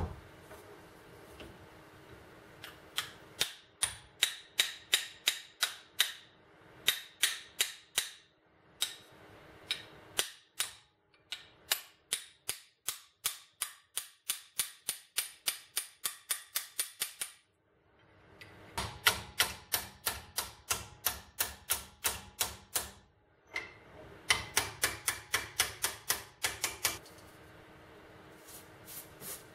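Hand wire brush scrubbing rust off a corroded steel mortar part, in quick back-and-forth strokes of about three to four a second, in several runs with short pauses between them. A single knock at the start.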